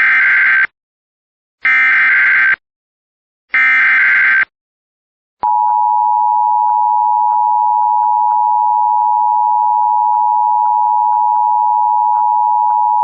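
Emergency Alert System SAME header: three short, loud bursts of buzzing digital data tones about two seconds apart, carrying the coded alert. About five seconds in, the steady two-tone EAS attention signal starts and holds, announcing that an emergency alert message follows.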